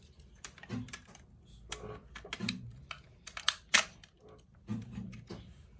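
Hard plastic toy parts clicking and clacking as they are handled and turned, in a string of irregular sharp clicks with a louder clack near the middle.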